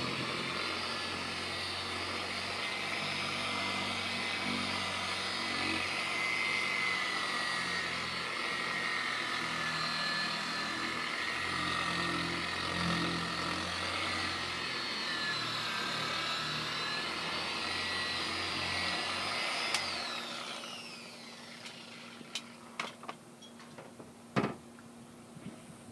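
Corded electric buffer with a wool pad running steadily against a fiberglass boat hull, its motor whine dipping and rising as it is pressed and moved, while it works compound into heavily oxidized gelcoat. About 20 seconds in it is switched off and winds down, followed by a few light knocks and clicks.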